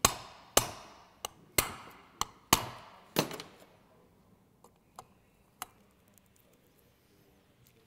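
Light hammer taps on the crankcase halves of a Honda PA50 two-stroke moped engine, knocking them together to seat them: about seven sharp knocks in quick succession, then a few fainter clicks.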